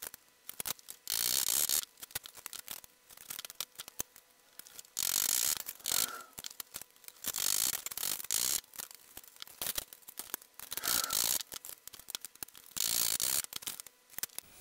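Tin snips cutting a sheet-metal panel along a curve: about five loud crunching snip runs, each under a second long, with smaller clicks of the blades and metal between them.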